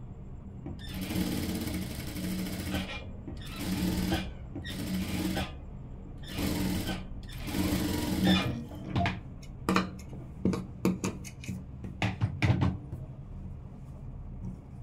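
Jack industrial sewing machine stitching in about five runs of a second or so each, then a string of short, quick bursts near the end as the seam is finished, over a steady low hum.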